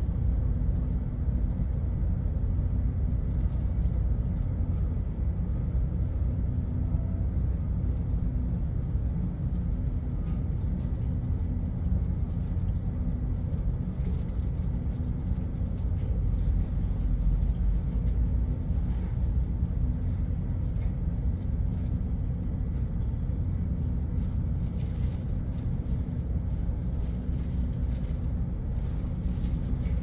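Ship's machinery running: a steady low rumble with a constant hum over it.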